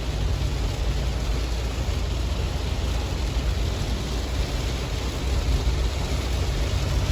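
Steady low rumble with an even hiss, like a vehicle on the move.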